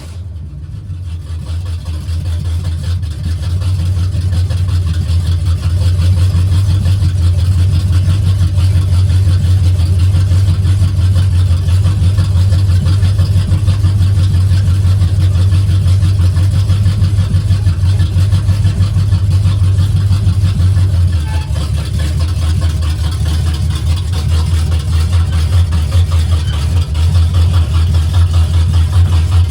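1988 Chevrolet K1500 pickup's engine running on open headers with no mufflers: a loud, steady low rumble that builds over the first few seconds.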